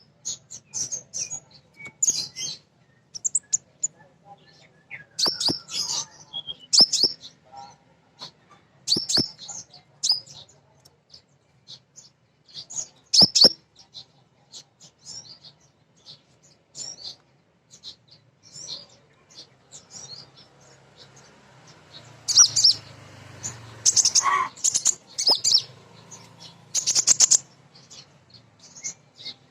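Female kolibri ninja sunbird calling: quick, high-pitched chirps and twitters in irregular bursts, busier and denser in the second half, with a few sharp clicks among them.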